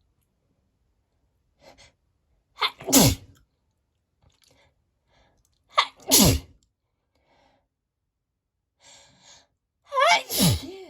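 A woman sneezing three times, about three to four seconds apart: big, wet sneezes set off by perfume. Each one starts with a short catch of breath and drops in pitch as it ends.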